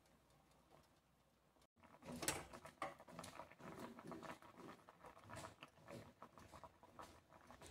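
Squash cubes simmering faintly in water in a stainless steel pot. About two seconds in, a slotted metal spatula starts stirring them, with irregular clicks and scrapes of metal on the pot over the bubbling.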